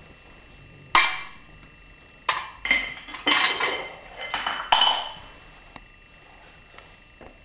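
Hard objects clattering, with metallic clinks and ringing. There is one sharp crash about a second in, then a dense run of crashes and clinks for about three seconds before it dies away.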